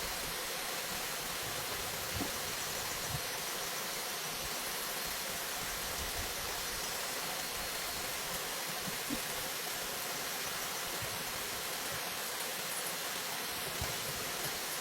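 Steady, even rushing noise with a few faint soft knocks and faint high chirps.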